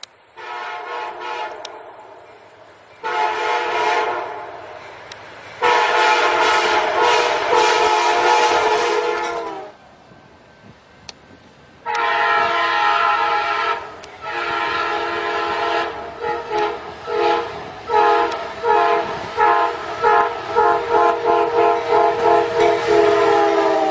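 Locomotive air horn sounding a chord in a series of blasts: a few long ones, then a run of short, quick toots, about two a second, near the end.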